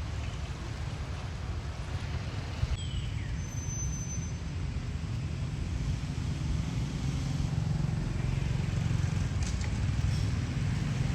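Wind buffeting the microphone: a steady rumbling outdoor noise that grows a little louder toward the end.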